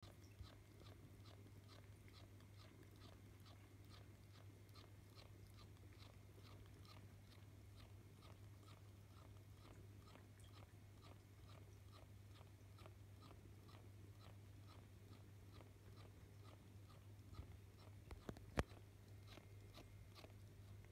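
Faint, rhythmic wet clicking of a cat's mouth, chewing and licking, about two clicks a second, over a steady low hum. A single sharp click near the end is the loudest sound.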